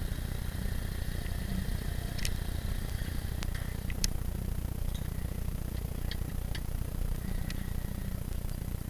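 Motorcycle engine idling at a standstill, a steady low rumble, with a few sharp clicks and light rattles scattered through it.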